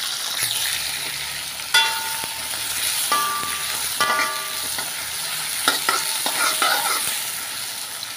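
Sliced onion, ginger and chopped garlic sizzling in hot oil in a wok while a metal spatula stirs them, scraping and clinking against the wok several times with short ringing notes. The aromatics are being sautéed until fragrant.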